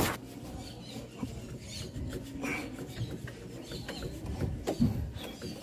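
Hand tools and metal parts knocking, clicking and scraping as the alternator is being unbolted and worked loose from the engine, with a sharp knock at the start and another loud knock near the end.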